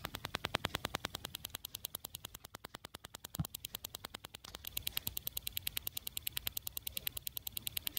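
Ultrasonic transducers of a FenSens wireless parking sensor ticking up close, an even train of faint clicks at about ten a second as the sensor fires its measuring pulses. A single soft thump a little over three seconds in.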